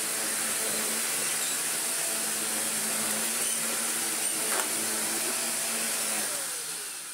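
Shark Navigator Lift-Away NV680 upright vacuum cleaner running steadily on its test run after repair. Near the end it is switched off and the motor winds down with a falling whine.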